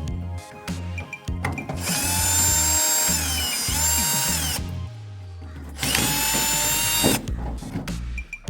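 Power drill running twice, first for about two and a half seconds and then for just over a second, its whine dipping in pitch as it loads, with background music playing.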